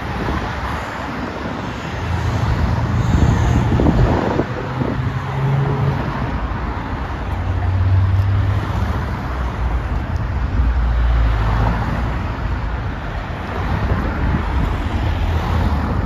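Road traffic: cars driving past one after another, their engines and tyres rising and fading as each goes by.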